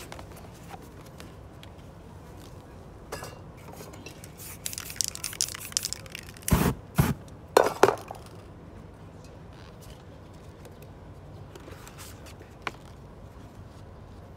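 Sheets of paper and a paper stencil being handled and laid on a canvas: a few seconds of rustling, brushing and knocks in the middle, loudest a little past halfway, then only a low steady background.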